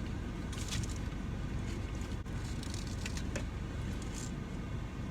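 Air conditioning blowing, a steady low rush of air that is really loud, with a few brief faint crackles over it.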